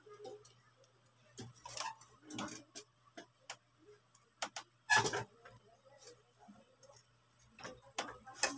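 Irregular clicks and knocks of fittings and tools being handled at an electric water pump mounted on a steel tank during installation, the loudest knock about five seconds in.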